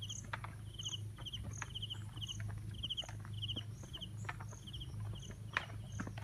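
Insects chirping in a steady rhythm, about two short pulsed chirps a second, over a steady low hum, with irregular footsteps and rustling through grass.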